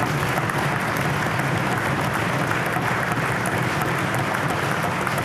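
Applause in a legislative chamber: many people clapping steadily.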